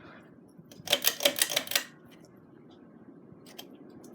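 Quorum Estate ceiling fan running on high with a bad wobble: a burst of rapid clacking, about a second long, over the fan's steady whoosh. The wobble is thought to come from a warped blade.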